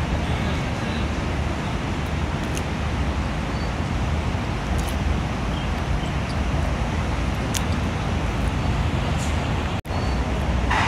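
Steady traffic noise: a constant low rumble with hiss, with a few faint clicks. It drops out for an instant near the end.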